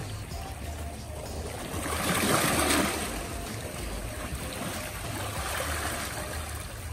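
Moving water washing and trickling, swelling for a moment about two seconds in, over a low steady rumble.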